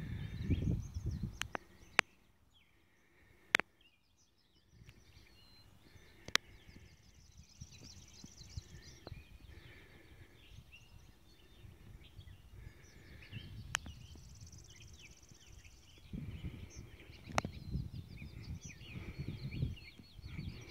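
Many birds chirping and trilling around a pond, with some longer buzzy trills among the short calls. Wind gusts on the microphone near the start and through the last few seconds, and a few sharp clicks, the loudest about two seconds and three and a half seconds in.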